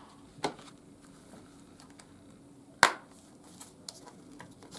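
Plastic Blu-ray cases being handled: a faint click about half a second in, then one sharp plastic clack a little before three seconds, followed by a few light ticks.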